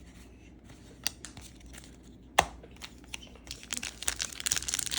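Crinkling and tearing of a trading-card pack wrapper being handled: a few sharp crackles in the first half, then a dense run of crinkling near the end.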